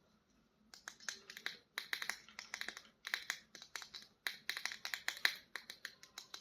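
Small plastic toys being handled: quick, uneven clusters of sharp clicks and taps, starting about a second in.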